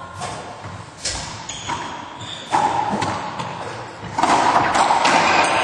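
A racquetball rally: the ball is struck by racquets and smacks off the court walls and floor several times, in sharp, separate hits. A louder stretch of scuffling noise comes in the last second and a half.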